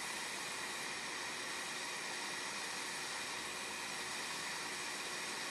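JBC hot air rework station blowing a steady hiss of hot air, melting the solder under a small surface-mount transistor.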